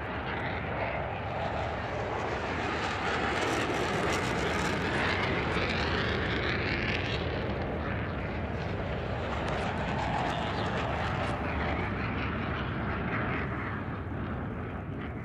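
Jet engines of the Boom XB-1 supersonic demonstrator, three General Electric J85 turbojets, running at takeoff power as the aircraft climbs away just after liftoff. A steady roar with a whine that rises in pitch about four seconds in.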